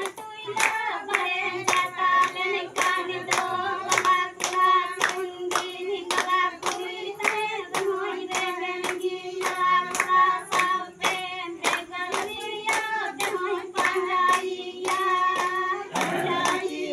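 A group of women singing together while clapping their hands in a steady rhythm, about two claps a second.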